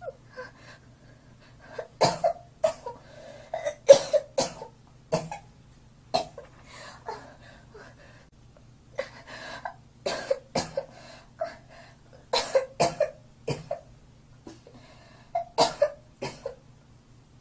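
A girl coughing over and over in short fits of two or three coughs, with pauses of a second or more between the fits.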